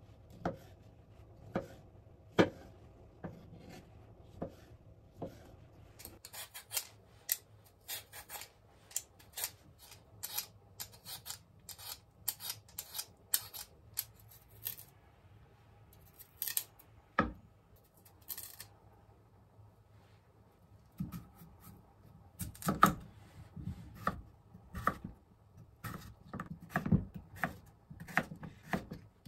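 A kitchen knife cutting a tomato on a wooden cutting board, a stroke about once a second; then a long run of quick, crisp scraping strokes as potatoes are peeled; then the knife slicing raw potato into sticks, each stroke knocking on the board.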